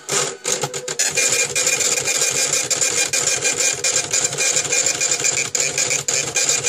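Impact ticket printer chattering rapidly as it prints an order: a fast, dense run of mechanical clicks over a steady whine. It starts with a few clicks and runs continuously from about a second in.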